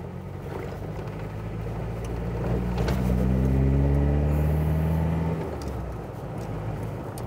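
Ford Ranger 3.0 Power Stroke diesel pickup driving, heard from inside the cab: the engine rises in pitch as it pulls for about three seconds, then drops off about five and a half seconds in. No noise comes from the gear lever area, which a new transfer case has cured.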